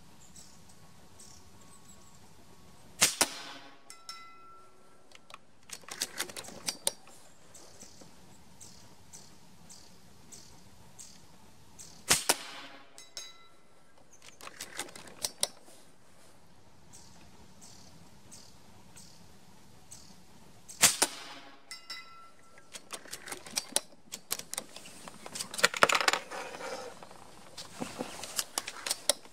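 A Reximex Throne PCP air rifle firing .22 pellets: three sharp shots about nine seconds apart. Between the shots come the clicks and clatter of the rifle being cocked and reloaded, with a longer run of handling noise near the end.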